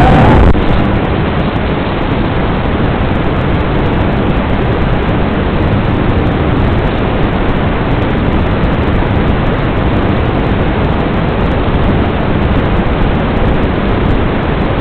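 Analog FPV video receiver static: a loud, steady hiss that takes over about half a second in, when the quad's motor sound cuts off and the video signal is lost after the crash into the grass.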